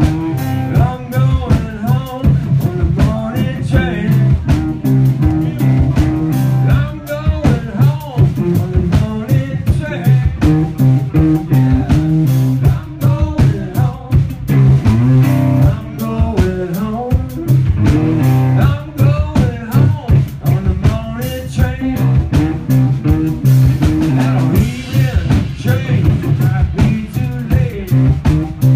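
Live blues-rock band playing: electric guitar, drum kit and electric bass, with steady drum hits over a heavy bass line, recorded through a phone's microphone.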